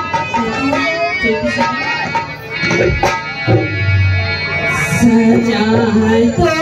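Live Indian folk music: a woman singing into a microphone over a harmonium's sustained reed chords, with dholak drum strokes.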